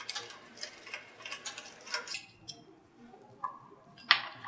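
Metal clicks and ticks from a T-handle Allen wrench loosening the hex bolts on a scroll pump's finned metal outboard housing: a run of light uneven ticks for about two seconds, then a pause and a few sharper clicks near the end.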